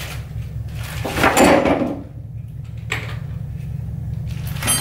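Handling of a cordless tool battery and impact driver while unpacking: a short scraping rustle about a second in, then two light plastic clicks, one about three seconds in and one near the end.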